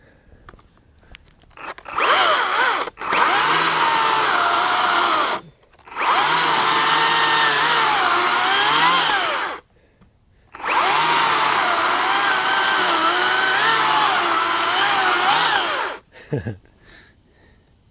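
Makita XCU04 36-volt (twin 18-volt battery) brushless cordless chainsaw cutting through a log about five inches thick. It runs in a short blip, then three long runs of several seconds each, stopping briefly between them. Its whine dips and recovers in pitch as the chain bogs down in the wood and frees up.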